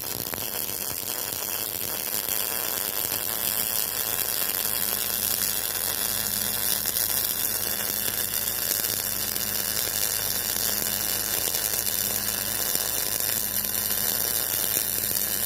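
Electric arc welding: the arc burns steadily for the whole stretch, a continuous crackling hiss with a faint low hum underneath.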